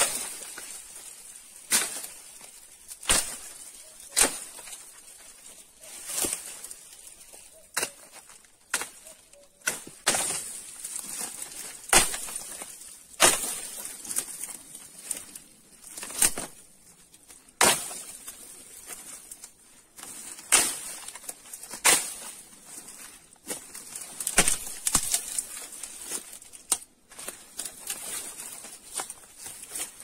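Dry dead twigs and brush rustling and snapping as they are pulled and broken by hand, with sharp irregular cracks every second or two.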